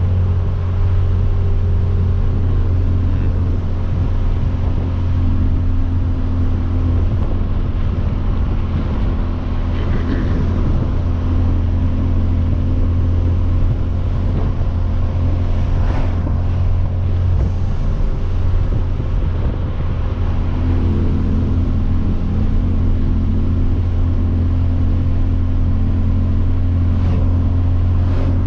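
Hyundai Veloster Turbo's turbocharged 1.6-litre four-cylinder with a catless downpipe exhaust, droning steadily while cruising, heard from the cabin with the windows down. A few faint ticks come through about halfway and near the end.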